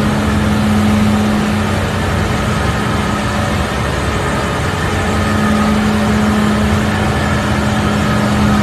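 Fish-processing line machinery running: a loud, steady mechanical drone with a constant low hum.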